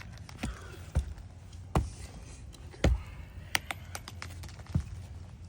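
Hammer blows driving a roofing nail under a lifted asphalt shingle: about half a dozen irregularly spaced knocks, the loudest nearly three seconds in.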